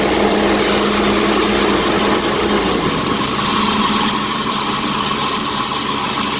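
Jeep Cherokee's 4.0-litre straight-six engine idling steadily after the ignition-circuit repair, a constant running noise with a steady hum; a low rumble drops away about three seconds in.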